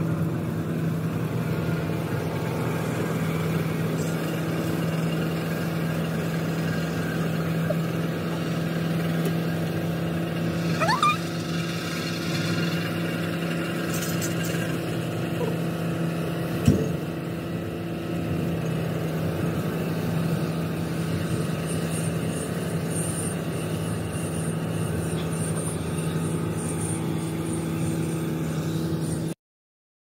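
Tractor engine running steadily while pulling a combined round baler and bale wrapper in a hay field: a constant drone. A short rising whine comes about eleven seconds in and a single sharp knock a few seconds later, and the sound cuts out for about a second near the end.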